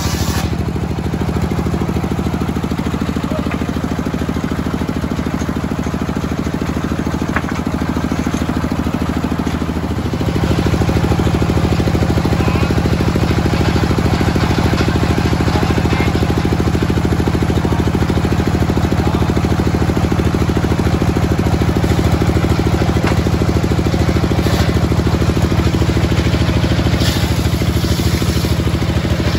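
Engine-driven homemade circular sawmill running steadily while teak is fed through the blade. About ten seconds in, the engine speeds up and the sound gets louder, then holds steady.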